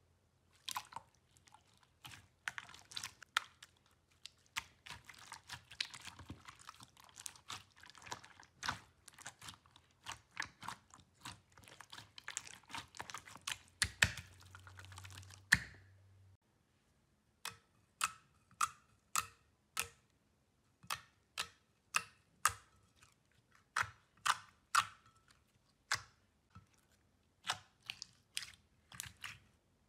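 Hands squeezing and pressing slime, giving a dense stream of wet clicks and pops. About 16 seconds in this gives way to a sparser, steadier run of sharp clicks, two or three a second, as glitter slime is pressed and poked.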